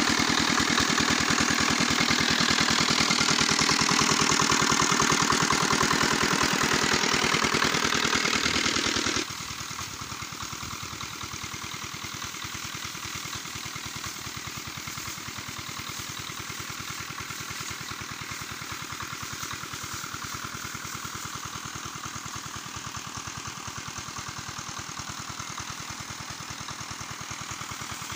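Small single-cylinder diesel engine driving a power sprayer pump for pesticide spraying, running steadily with a fast, even chugging beat. It is close and loud at first, then about nine seconds in it drops to a quieter, more distant chugging.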